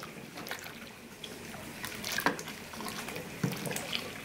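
Wooden spoon stirring a bucket of milky gelatin mixture: the liquid sloshes, with a few light knocks of the spoon against the plastic bucket.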